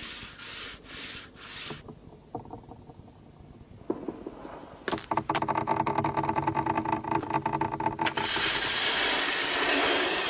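Sound effects from a stop-motion film's soundtrack. First come a few soft scuffs about half a second apart. From about five seconds in there is a rapid clanking rattle over a steady drone, which gives way near eight seconds to a loud, steady rushing hiss.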